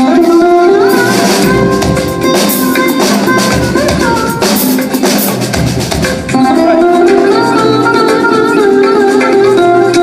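Drum kit and hand percussion playing along with melodic backing music. The drums and cymbals are dense for the first six seconds or so, then thin out, leaving the sustained melody.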